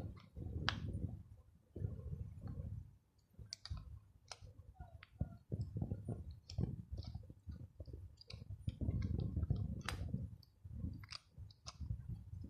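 Handling noise: scattered small clicks and taps over bouts of low rumbling, as small parts and tools are handled up close.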